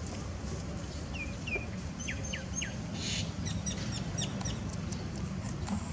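Small birds chirping: a few short falling notes, then a quick run of high twittering ticks, over a steady low rumble.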